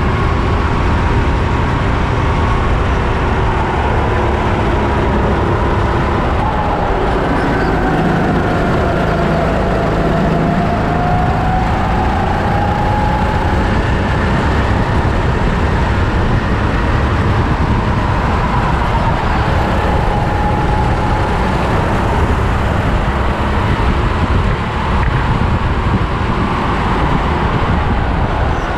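Four-stroke rental go-kart engine heard from on board at racing speed, its note rising and falling with the throttle through the corners. The pitch sags about a third of the way in and then climbs again, over a heavy low rumble of chassis and wind.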